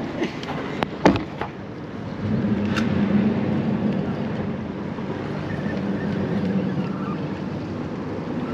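A couple of sharp knocks about a second in, then a motorboat engine drones steadily at a constant low pitch as the boat passes on the channel, building about two seconds in and holding.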